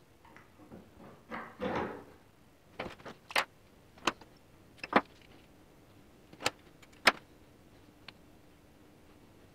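Hands at a steel bench vise: a short scraping as the steel flat bar is set in the jaws, then about eight sharp clicks and taps over the next five seconds as digital calipers and a marker pen are picked up and handled. The loudest clicks come about halfway through and again a couple of seconds later.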